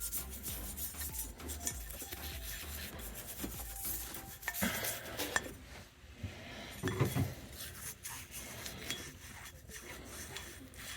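Small metal sheave parts clinking and scraping as they are handled and wiped clean, with rubbing in between and a dull knock about seven seconds in.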